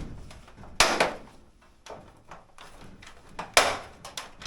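Parts of a GE dryer's lint filter assembly being tucked and clipped into place by hand: two sharp knocks, one about a second in and one near the end, with lighter clicks and taps between.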